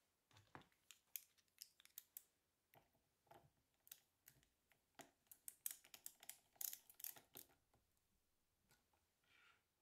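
Hand screwdriver driving small screws through a metal flange into plywood: a faint, quick string of light metallic clicks and scrapes that dies away near the end.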